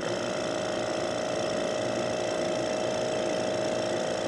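Vacuum pump switching on and running with a steady hum, pulling vacuum on a Büchner funnel filter flask.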